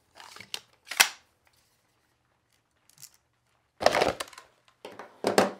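Sharp knocks and clatter of a cordless tool and its packaging being handled and set down during unboxing. There is one crisp knock about a second in, then a denser bout of knocking and rustling near the end.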